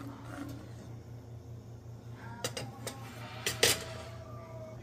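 Metal utensil clinking against a cast iron pot of rice and broth after stirring: a handful of sharp clinks with a short ring about two and a half seconds in, the loudest a second later, over a low steady hum.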